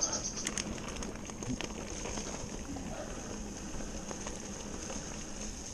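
Mountain bike tyres rolling over a dirt forest trail covered in dry fallen leaves: a steady crackling rustle with a few small knocks from the bike, and a faint high steady hiss underneath.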